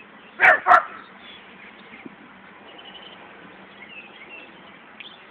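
Two short, loud yelps in quick succession about half a second in, then a steady outdoor background with faint bird chirps.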